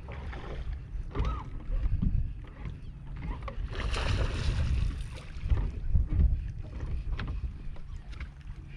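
Wind buffeting the microphone and water lapping against a bass boat's hull, a steady low rumble. About four seconds in there is a louder rush of hissing noise lasting a little over a second.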